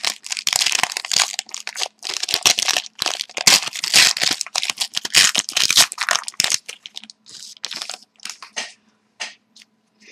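A trading card pack's plastic wrapper torn open and crinkled by hand, dense crackling for most of the time, thinning to a few scattered crinkles near the end.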